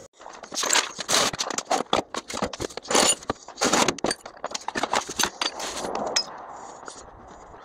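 Metal ratchet-strap hooks and buckles clinking, clanking and scraping as the straps are picked up and handled. About six seconds in the clatter gives way to a steady low rushing noise.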